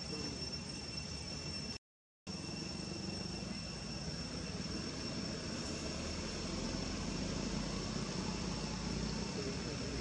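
Steady outdoor background noise with a constant high-pitched whine and a low rumble. The sound cuts out completely for about half a second, about two seconds in.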